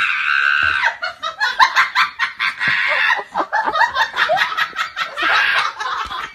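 A person laughing hard in quick, repeated bursts that carry through the whole stretch.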